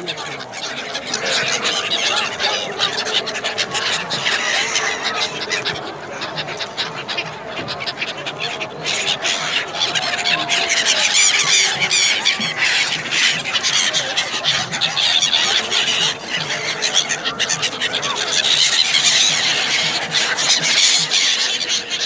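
A large flock of gulls calling over and over, a dense overlapping chorus of high cries, as they crowd in around a boat to be fed. It gets somewhat louder about halfway through.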